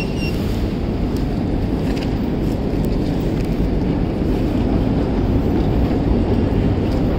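Steady low rumble of running metro escalators in a large station hall. A short high electronic beep from a ticket turnstile sounds right at the start.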